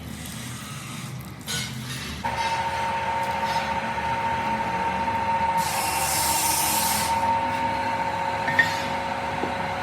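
A workshop machine's motor starts about two seconds in and runs with a steady whine. A burst of hiss comes in the middle, and there is a short click near the end.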